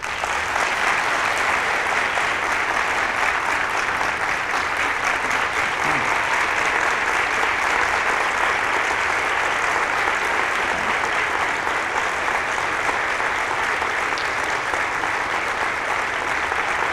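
Large audience of several hundred applauding steadily after a speech ends, breaking out all at once.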